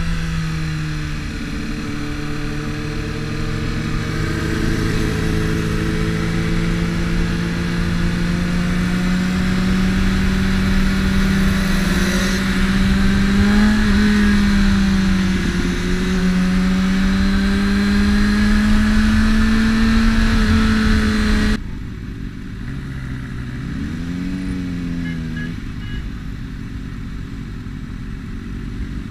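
Sport motorcycle engine running under way with a rushing wind noise, its pitch steady and slowly climbing. About three-quarters through, the rushing noise drops away suddenly, and the engine then revs briefly up and back down.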